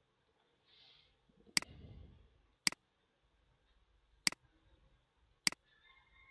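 Computer mouse buttons clicking four times, sharp single clicks spaced roughly a second apart.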